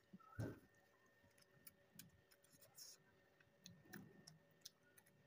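Faint eating sounds: scattered small mouth clicks and soft chewing, with one louder brief low thump about half a second in.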